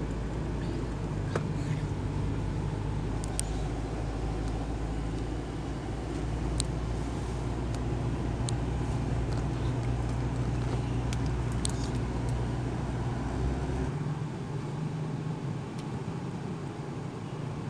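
Engine and road noise heard from inside a moving car's cabin: a steady low rumble whose deepest part drops away about fourteen seconds in, as the car slows to a stop.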